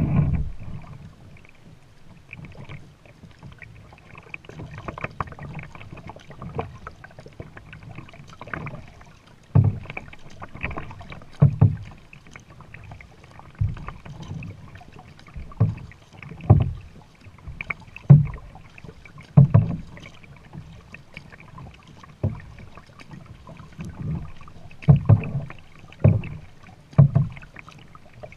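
Kayak paddle strokes: a double-bladed paddle dipping and splashing into the water about every one to two seconds, over a steady slosh of water along the plastic hull, heard close from the kayak's bow. The strokes are sparse for the first several seconds and settle into a steady rhythm after about ten seconds.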